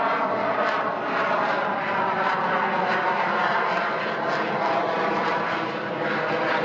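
Lockheed Martin F-35A Lightning II's single Pratt & Whitney F135 afterburning turbofan running at high power in flight: a loud, steady jet roar with a ragged crackle all through it.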